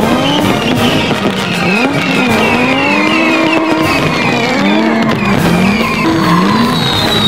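Background music with a sliding, wavering melody, with faint crackles and pops of fireworks under it.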